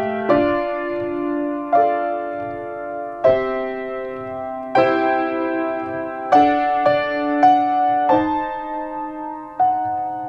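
Piano playing a slow, quiet piece, with chords struck about every second and a half and left to ring and fade.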